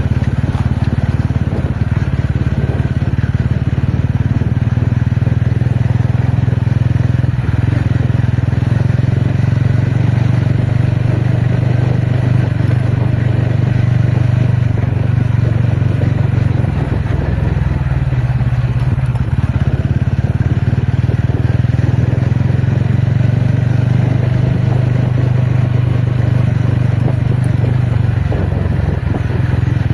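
TVS Ronin's single-cylinder engine running steadily as the motorcycle is ridden off-road, its note dipping briefly a little past halfway before steadying again.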